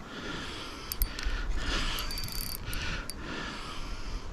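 Spinning reel being wound in slowly under the load of a heavy fish, its gears whirring in repeated turns with a few sharp clicks.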